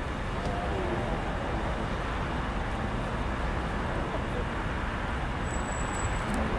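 Steady low vehicle rumble, with faint voices in the first second or so.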